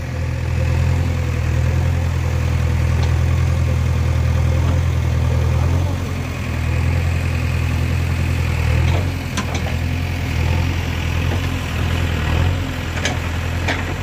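JCB 3DX backhoe loader's diesel engine running steadily while the backhoe digs, its note easing and picking up again about halfway through. A few sharp knocks come near the end.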